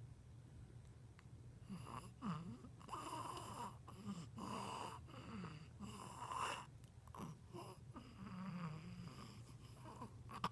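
Snoring: a series of short, irregular snores roughly a second apart, with small squeaky whistles between some breaths.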